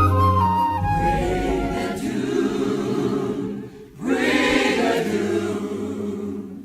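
Choir singing long sustained chords without clear words, over a soft orchestral backing; a flute melody finishes about a second in. The choir drops away briefly near four seconds, then swells back.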